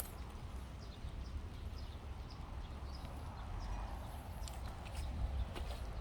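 Footsteps on a road surface: irregular taps and scuffs over a steady low rumble.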